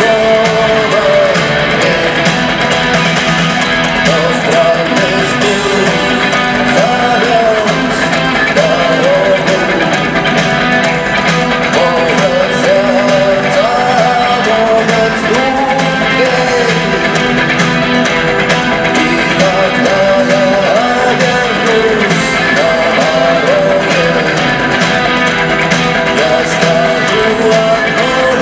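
A live rock band plays loud and continuous, with a singing voice over electric guitar. It is recorded from the audience on a camera's built-in microphone.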